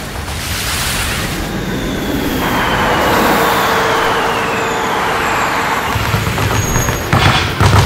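Title-sequence sound design: a swelling whoosh, then a steady traffic-like rush with a slowly falling tone. A low pulsing beat comes in about six seconds in, with two sharp hits near the end.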